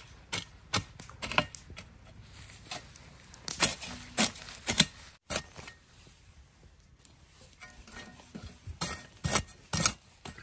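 A hand hoe chopping into dry soil and straw mulch: an irregular series of sharp strikes and gritty scrapes, the loudest about four seconds in and again near the end.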